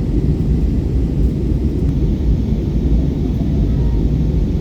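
Steady low cabin rumble inside an Airbus A320-214 in flight, the engines and airflow heard from a passenger seat as the aircraft descends.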